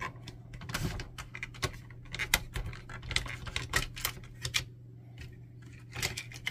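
Irregular plastic clicks and knocks as an inkjet printhead is worked loose and lifted up out of its plastic carriage by hand.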